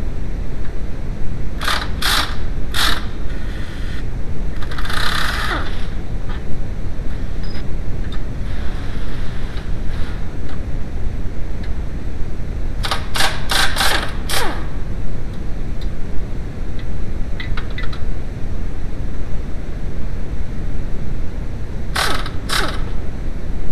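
Metal wrench clinking against the 18 mm control arm bolts and suspension metal of a VW New Beetle, in short groups: about three clinks, then a quick run of about five, then two. Under them is a steady low rumbling noise.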